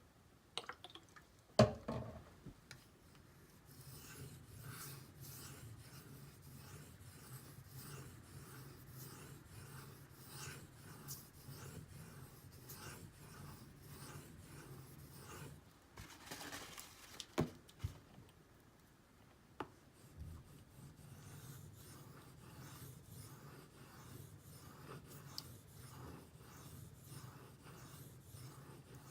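D2 steel knife blade stroked back and forth on a Shapton Pro 5000-grit whetstone, a light rhythmic scraping of about two strokes a second with a brief pause partway through. A sharp knock about a second and a half in is the loudest sound.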